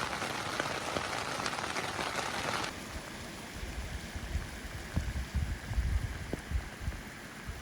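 Rain falling in a steady hiss, with scattered sharp ticks of single drops. About three seconds in, the hiss suddenly thins, and low rumbles come and go through the second half.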